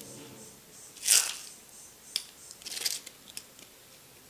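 Deep-fried sago (sabudana) sandige crisps crushed in a hand: a crackling crunch about a second in and another near three seconds, with a few small snaps between. The pieces give way easily, a sign they are fried light and crisp.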